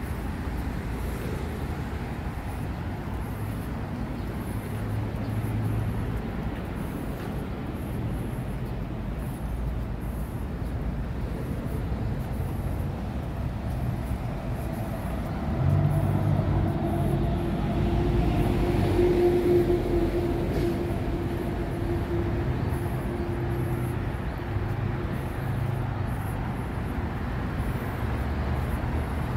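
Road traffic noise: a steady low rumble of vehicles. About halfway through it grows louder as a vehicle's engine hum comes in and holds for several seconds.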